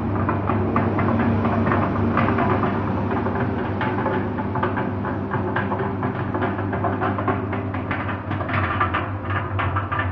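Motor-driven drum mixer running, its drum turning at about one revolution a second: a steady hum with irregular clicking and knocking from the drum and its rollers.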